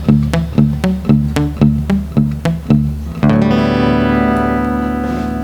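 Indie rock band playing: a driving pattern of about four hits a second over alternating low bass notes, then about three seconds in a distorted electric guitar chord is struck and left ringing, slowly fading.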